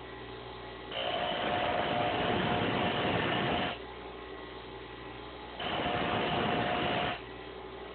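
Electric grinder running steadily, with a metal lock pick blank pressed against it twice. Each pass gives a loud grinding with a ringing whine, the first about three seconds long and the second about a second and a half.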